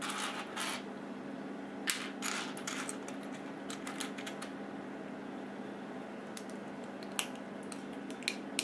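Plastic Lego pieces clicking and rustling as they are handled, with a few short sharp clicks scattered through and soft rustling near the start.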